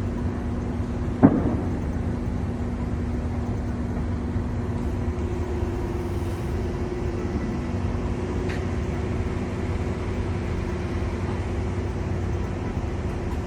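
Steady low vehicle rumble with a faint hum, and one sharp knock about a second in.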